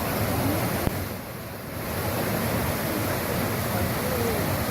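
Waterfall rushing: a steady roar of falling water that dips briefly about a second in, then returns.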